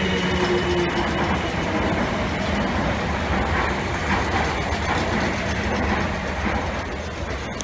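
South Western Railway electric multiple unit rolling along the platform: a steady rumble of wheels on the rails, with a faint motor whine dying away in the first second and the sound easing slightly near the end.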